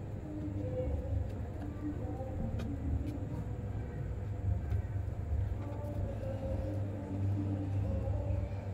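Steady low rumble, with faint distant voices and a few light clicks.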